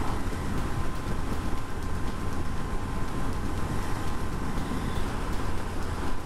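Honda CB900 Hornet (919) inline-four running steadily at cruising speed, with wind rush and road noise on the GoPro's microphone.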